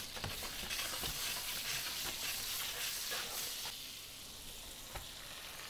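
Butter sizzling and crackling as it melts in a hot nonstick frying pan, a steady frying hiss that eases off after about four seconds. A single sharp knock sounds about five seconds in.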